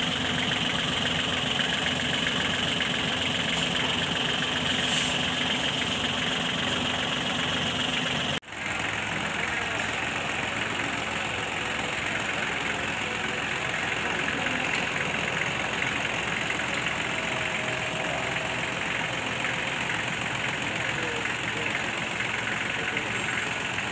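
Kubota D1402 diesel engine of a Kubota L1-215 compact tractor idling steadily, with a momentary break in the sound about eight seconds in.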